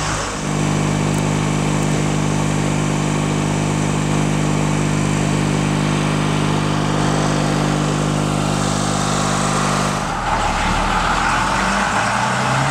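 Vehicle engine idling steadily with an even hum. About ten seconds in it changes to a deeper engine rumble with more hiss.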